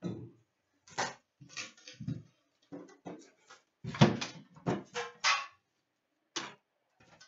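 Hands opening a metal trading-card tin: crinkling wrapper, with the tin and the packs inside knocking and scraping. It comes as a string of short, sharp noises, the loudest about four seconds in.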